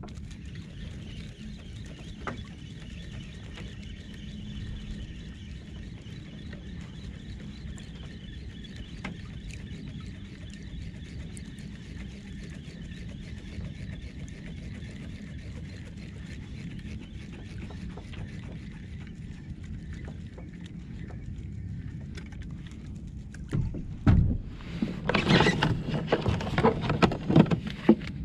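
A spinning reel being cranked with a faint, steady whirr over the low wash of water around a kayak. A burst of loud knocks and rustling near the end.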